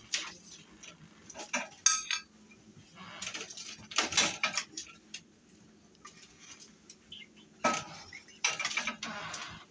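Kitchen utensils clattering and scraping against dishes and a pan, in a few separate stretches, with a short ringing clink about two seconds in.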